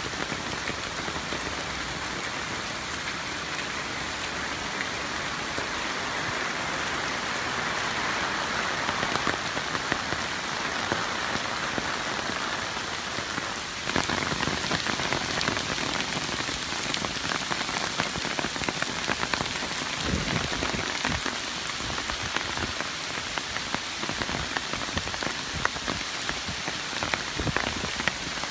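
Heavy typhoon rain pouring down: a dense, steady hiss full of separate drop hits. It steps up louder and rougher about halfway through.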